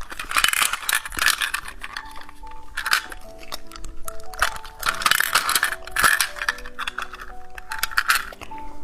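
Small hard candies rattling and clinking in repeated bursts, over background music with a simple tinkling melody.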